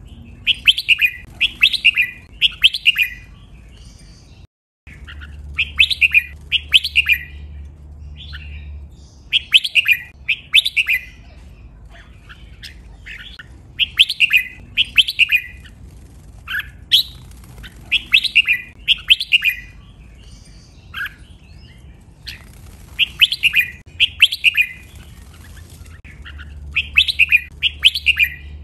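Red-whiskered bulbul singing: short phrases of three or four quick, clear notes, repeated every few seconds.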